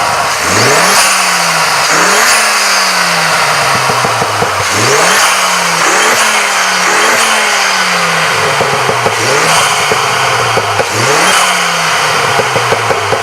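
Ford Focus ST with a decat Scorpion exhaust, revved repeatedly while stationary: seven or eight sharp blips of the throttle. Each one climbs quickly and falls back more slowly, with pops and crackles from the exhaust as the revs drop.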